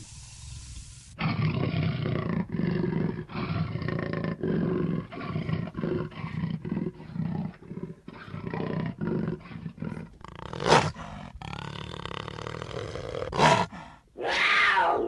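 Big cat calling: a rapid run of short rough calls, about two or three a second, then two sharp short sounds and one falling call near the end.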